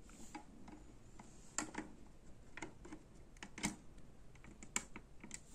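Scattered light plastic clicks and taps, irregular, as the parts of a hang-on aquarium filter are handled and fitted together; one knock about three and a half seconds in is the loudest.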